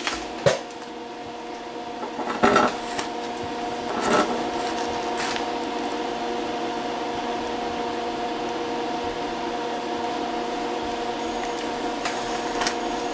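TIG welding arc on a steel wrench, a steady buzzing hum with a few sharp crackles in the first four seconds.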